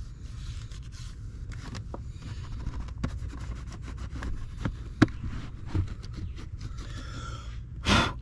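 Hand scraping and rubbing in a car's footwell as the area under the removed kick panel is cleaned: irregular scratchy strokes and small clicks, with a sharp click about five seconds in and a short, loud rustling burst near the end.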